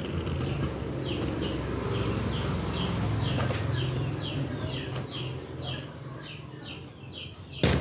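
Chicks peeping repeatedly, short high falling peeps a few times a second, over a low steady hum. A sharp knock near the end.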